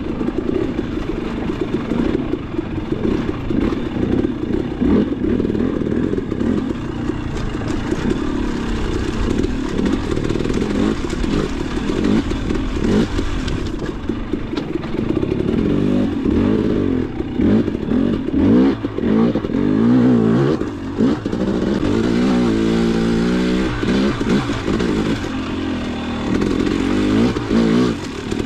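Dirt bike engine being ridden hard on a trail, revving up and down with the throttle so its pitch keeps rising and falling, most plainly over the second half.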